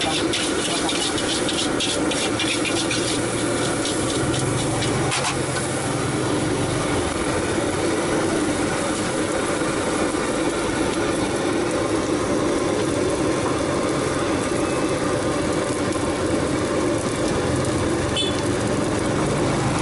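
Steady roar of a street-stall wok burner, with a metal spatula scraping and clanking against the wok as rice is stir-fried, most busily in the first few seconds.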